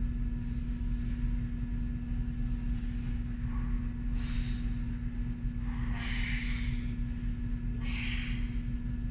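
A woman breathing during a core exercise, a breath about every two seconds, over a steady low hum.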